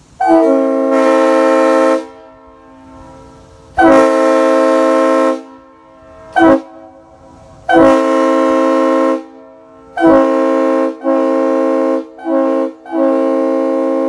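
Leslie RSU-3L three-chime train horn blowing a chord in a series of blasts: a long blast, a second long one, a short toot, another long blast, then a quicker run of shorter blasts ending in a long held one. Each blast starts sharply, with a brief slide up into pitch.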